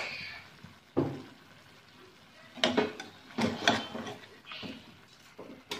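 Metal spatula knocking and scraping against a granite-coated pan as pieces of chicken are turned over, a handful of irregular clacks.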